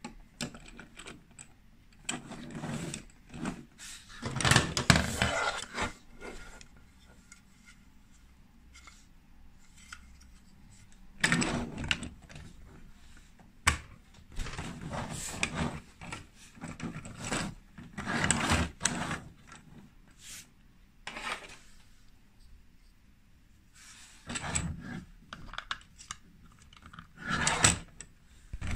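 Hard plastic Lego Duplo pieces being handled and pressed together: intermittent clicks, rattles and scrapes in irregular bursts, with short pauses between.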